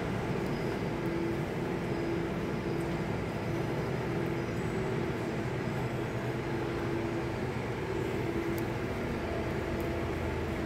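Steady low rumble with a faint hum that comes and goes, and no distinct events.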